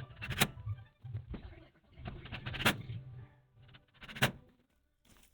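Background guitar music fading out, broken by three sharp knocks spaced a second or two apart; near the end it goes almost silent.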